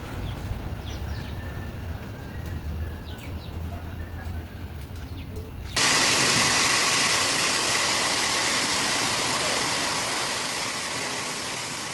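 Outdoor ambience with a low rumble and a few faint chirps. About six seconds in, it cuts abruptly to a loud steady hiss of water, which slowly fades.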